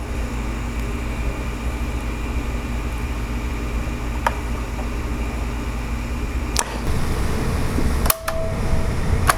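Steady low electrical hum with a few short clicks scattered through it, and a sharper pair of clicks about a second before the end.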